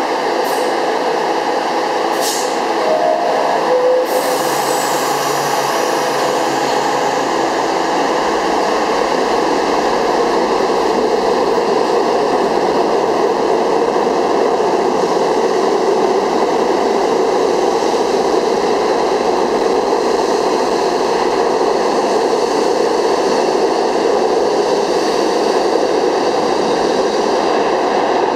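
R68 subway train leaving the station. About three seconds in there is a two-note falling door chime, then a hiss of air, and then the steady rumble of the cars accelerating out and running past.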